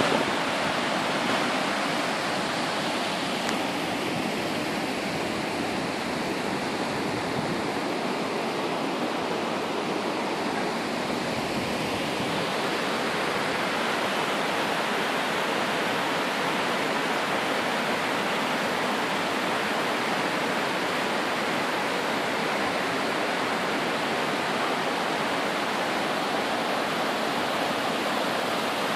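Water from an intermittent karst spring, in full flow, gushing from a rock cleft and cascading down a small rocky stream bed: a steady rushing.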